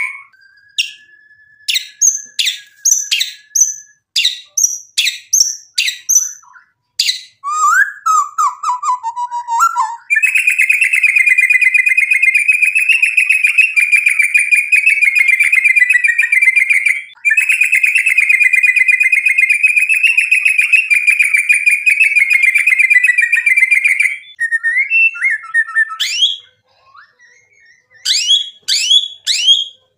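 White-rumped shama singing: a held whistle and separate sharp sweeping notes, then a long fast trill lasting about fourteen seconds with one brief break, and quick whistled notes again near the end.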